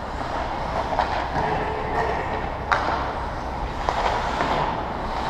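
Steady background noise of a hockey game, with a handful of short sharp knocks from sticks striking. The loudest knock comes a little past halfway.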